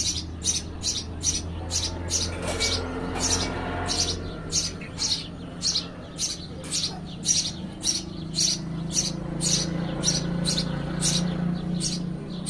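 Baby birds chirping to be fed: a steady run of short, high chirps, about two or three a second.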